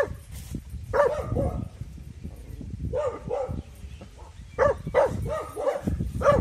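Six-month-old Taiwan dog barking at a stranger: guard barking in short bursts of two or three barks, with brief pauses between the bursts.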